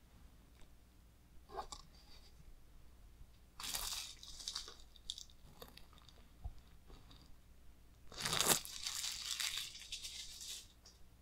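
A large hardcover book and its cardboard case being handled: two stretches of rustling and scraping, a short one about four seconds in and a longer, louder one near the end, with a few small clicks before them.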